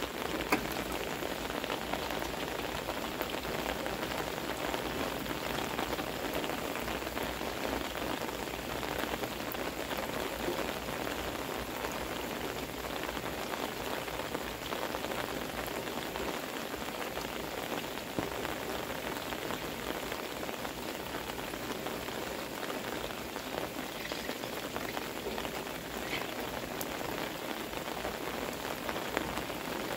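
Heavy rain pouring steadily, pattering on an umbrella held over the recorder and on a wooden deck.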